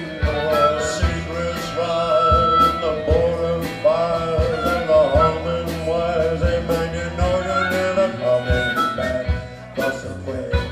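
Live band playing: a harmonica carries the melody with long, bending notes over electric guitar and a steady drum beat.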